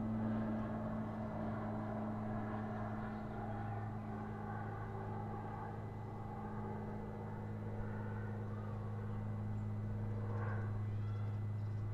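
A steady low hum that holds constant throughout, with faint background noise.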